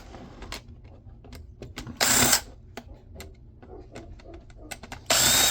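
Screws being backed out of a jump-starter pack's plastic case with a power drill-driver: two short bursts of the driver, about two and five seconds in, with small clicks and taps of the screws and parts in between.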